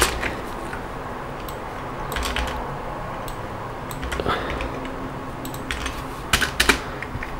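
Scattered clicks and taps of a computer keyboard and mouse over steady low background noise: a few isolated clicks, then a quick cluster near the end.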